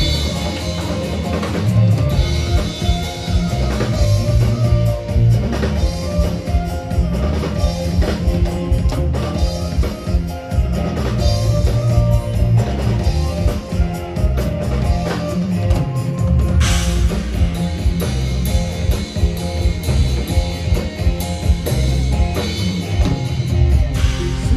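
Live band playing an instrumental number through a large outdoor PA: electric guitars over a busy drum beat, loud and continuous. It is an instrumental sound check.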